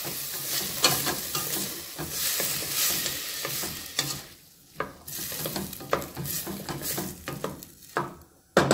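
Wooden spoon stirring and scraping diced potatoes and onion around a stainless steel pot, with frequent knocks of the spoon on the pot. The frying sizzle from the splash of water in the hot oil dies down about halfway through. A sudden loud sound comes near the end.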